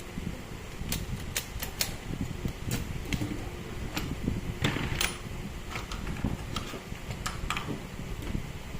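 Irregular sharp clicks and taps of small hard parts being handled during a power-tool teardown, over a low steady hum.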